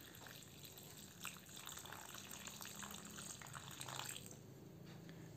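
A thin stream of water pouring into a stainless steel bowl that is already full of water, a faint steady splashing and trickling, thinning out in the last second or so.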